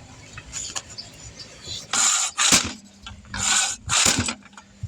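Impact wrench on a car's lug nuts, running in four short bursts in the second half.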